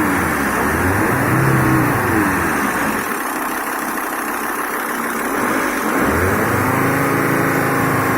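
Audi A6 C4 2.5 TDI five-cylinder diesel engine revved twice, dropping back to idle between the revs. The engine has a knock that the owner cannot trace, though the injectors and hydraulic lifters have been rebuilt and the timing set.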